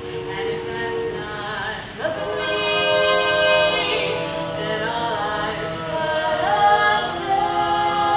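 Women's barbershop quartet singing a cappella in close four-part harmony, holding chords that shift from one to the next. The singing swells louder after a short dip about two seconds in.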